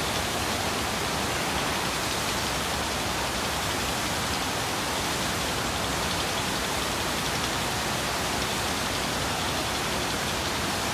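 Water rushing steadily down the chute of a log flume ride, a constant even hiss.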